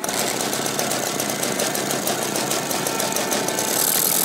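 OS 120 AX two-stroke glow engine of a large model airplane comes in suddenly and runs steadily with a fast, buzzing rattle, getting slightly louder near the end.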